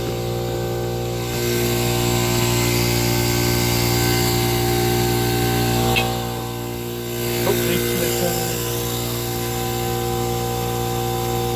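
A machine motor running steadily with a hum made of many even tones, and a couple of sharp clicks around the middle.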